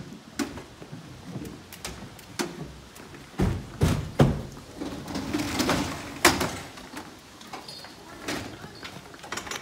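Fire engine cab door shutting with heavy thuds, then the aluminium roller shutters of the equipment compartments rattling as they are pulled up, with a sharp clack near the end of the rattle, amid scattered clicks and footsteps.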